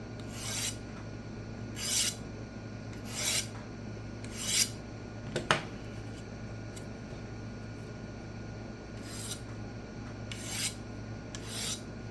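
Kitchen knife edge scraped in single slow strokes to cut off the rolled burr of a deliberately dulled edge: about seven rasping strokes roughly a second apart, with one sharp click about five seconds in and a pause of about three seconds before the strokes resume.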